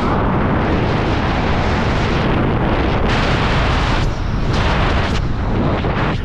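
Loud wind rush and buffeting on the microphone of a small aircraft in flight, a heavy, irregular roar with gusts that come and go every second or so.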